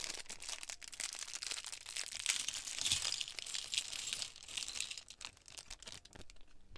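A small clear plastic bag of Lego bricks crinkling and crackling as it is torn open and emptied. The crinkling thins out to a few clicks about five seconds in.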